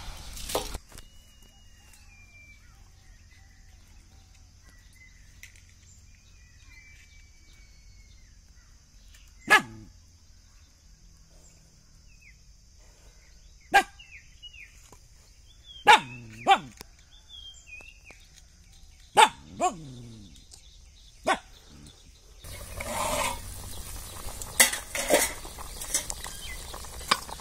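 A dog barking: seven single, sharp barks spread over about twelve seconds, over a faint steady high-pitched insect drone and a few bird chirps. Near the end, a pot of rasam boiling hard.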